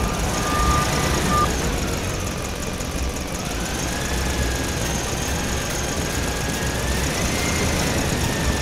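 Radio-controlled dump truck driving off, its engine sound running steadily with a motor whine that rises and falls several times. A steady reversing beep stops about a second in.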